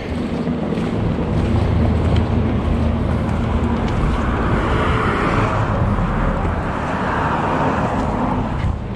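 A motor engine running with a steady low hum, with a rushing noise that swells over the middle few seconds and fades near the end.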